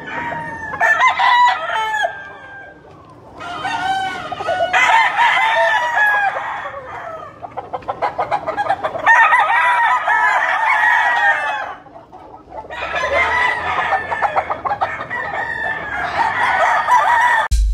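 Game roosters crowing over and over in four long spells with short pauses between, the crows overlapping one another.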